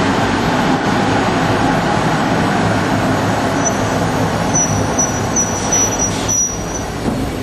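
Industrial conveyor and its drive running, a steady mechanical hum. From about halfway, short high-pitched chirps repeat about three times a second.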